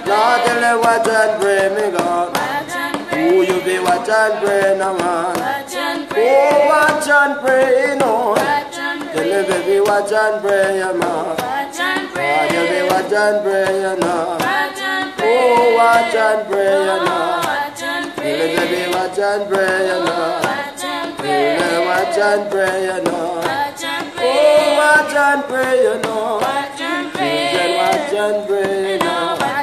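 Voices singing a Christian praise song together, with a steady percussive beat underneath.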